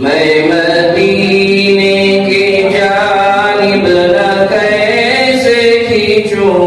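A solo voice singing an Urdu naat unaccompanied, drawing out long held notes that glide up and down. It comes in at the start after a brief breath.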